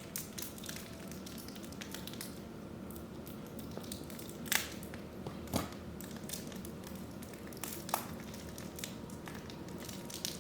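Tape being picked at and peeled off a small plastic Beyblade driver: soft crackling and rustling with scattered sharp clicks, the loudest about four and a half and five and a half seconds in.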